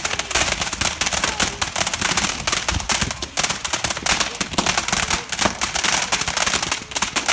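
Fireworks giving off loud, dense crackling: a rapid stream of sharp pops, many a second, with no pause.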